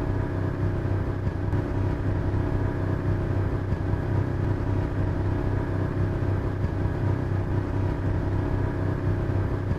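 Boat motor running steadily at cruising speed, an even drone with a strong low hum.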